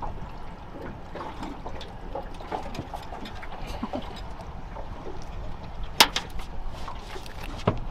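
Small clicks and knocks of a fish being unhooked by hand in an aluminium dinghy, with one sharp, loud knock about six seconds in and a smaller one near the end, over a steady wash of water and wind.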